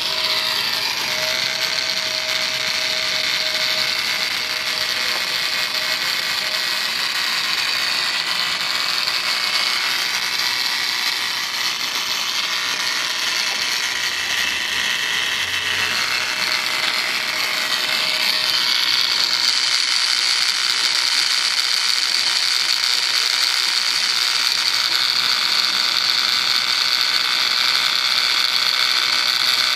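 Homemade gear-type oil pump running with a steady high whine, sucking engine oil out through a thin 5 mm copper probe down the dipstick tube. The whine starts abruptly and gets louder about two-thirds of the way through.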